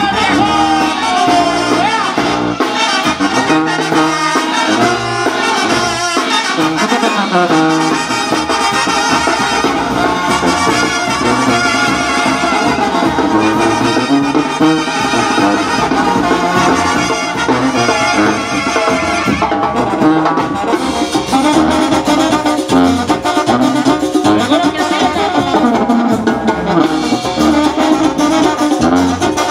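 Mexican banda (brass band) playing, with trumpets and trombones carrying the melody over drums.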